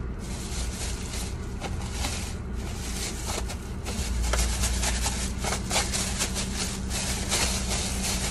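Thin plastic shopping bag rustling and crinkling as it is handled, in many quick crackles. A steady low hum runs underneath inside a car.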